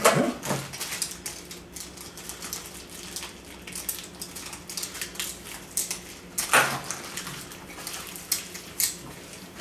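Small hard plastic and metal Beyblade Burst top parts clicking and clattering as they are handled at a table, with light crinkling of plastic wrappers. Louder clatters come right at the start and again about six and a half seconds in.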